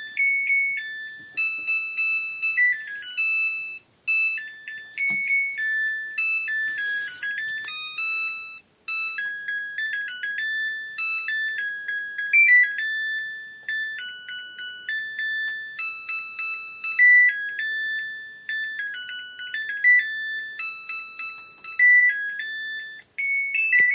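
Samsung WF604 washing machine's electronic beeper playing its end-of-cycle melody: a tune of single high beeping notes in short phrases. It signals that the wash is finished and the door has unlocked.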